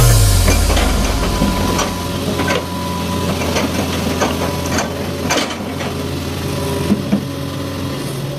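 Excavator engine running steadily, with scattered knocks and rattles, two of them sharper about seven seconds in.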